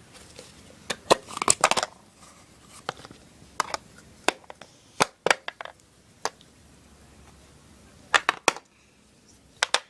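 Plastic Play-Doh tools and dough containers being handled: scattered sharp clicks and knocks, a quick run of them about a second in and a couple more near the end.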